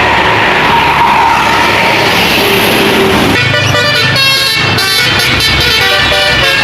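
A tour bus passing, then about halfway in a telolet (basuri) multi-tone air horn playing a melody of stepped notes.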